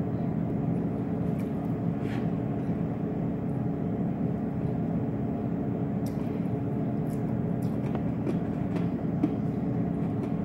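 Steady low mechanical hum, with a few faint short clicks over it.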